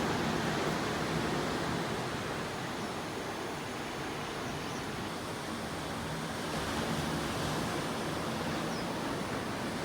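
Gentle sea waves washing on the shore in a steady hiss of surf, swelling slightly about two-thirds of the way through.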